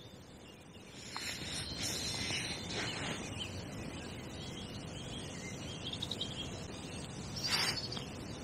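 Songbirds chirping over steady outdoor background noise that grows a little louder about a second in, with a brief sharp noise near the end.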